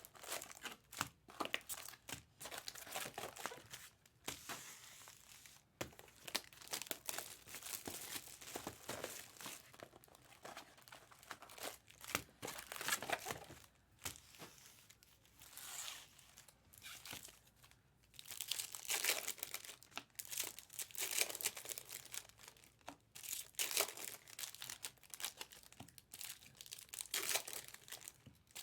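Trading card pack wrappers being torn open and crinkled in the hands, in irregular bursts of crackling with short pauses between.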